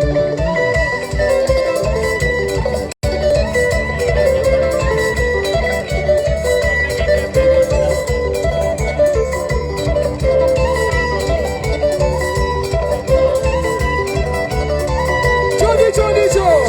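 Live dance band playing an instrumental passage: guitar lines over bass and a steady beat. The sound cuts out for an instant about three seconds in.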